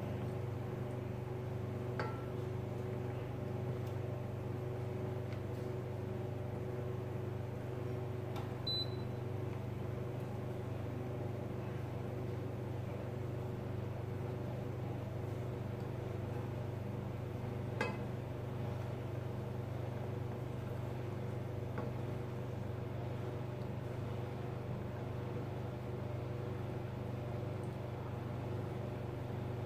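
Steady low machine hum in a kitchen. A few light knocks of a wooden spoon against a stainless steel pot during stirring, and a short high beep about nine seconds in as the electric hob's power setting is raised.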